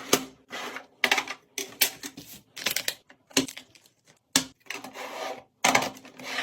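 Packages and containers being handled and set down while a refrigerator is organized: an irregular run of clicks, knocks and rustling, scraping sounds.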